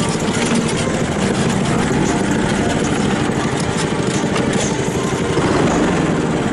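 A Briggs & Stratton 144cc single-cylinder four-stroke engine runs steadily, driving a small homemade truck along.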